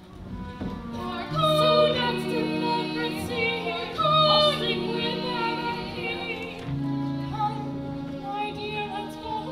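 Opera singing, women's voices to the fore, over held notes of instrumental accompaniment that shift every second or two.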